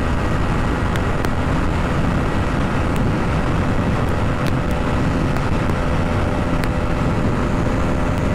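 Aprilia RS 125's single-cylinder four-stroke engine running steadily at high revs in sixth gear at about 120 km/h, under a steady rush of wind.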